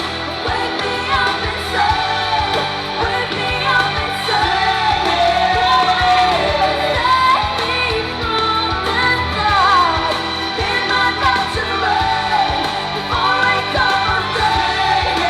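A pop song with a singing voice carrying the melody over a full band backing.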